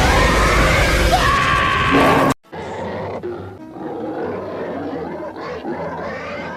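A loud, screechy monster roar over background music, cut off abruptly a little over two seconds in, followed by quieter music.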